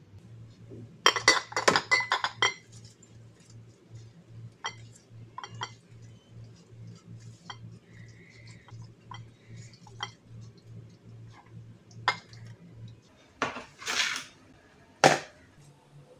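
Glass jars and bottles clinking and knocking against each other and the tiled kitchen counter as they are picked up and set back in place, with a quick cluster of clinks a second or two in, scattered single clicks, and a few sharper knocks near the end.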